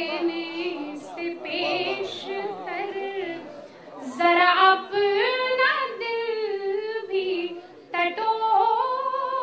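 A woman singing couplets of Urdu poetry unaccompanied, in long held notes that glide up and down, with two brief breaths between phrases.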